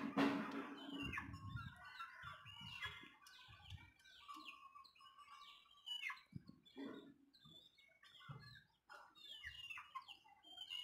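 Domestic chickens calling in a yard: scattered short chirps and peeps from young birds, with soft clucks. There is a louder burst of noise in the first second.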